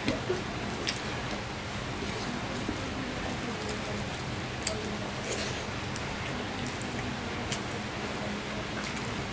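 Steady rain falling, with a few soft clicks and squishes of fingers mixing rice on a plate.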